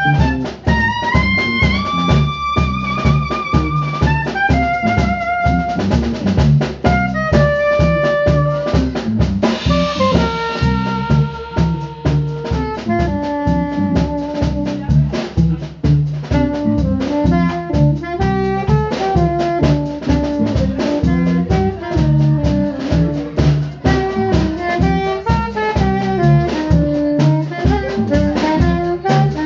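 Instrumental jazz-style music: a brass lead holding long notes with vibrato over a steady drum-kit beat.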